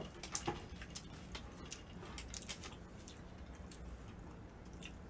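Faint scattered clicks and taps of eating with chopsticks from a plastic takeaway udon container, over a low steady hum.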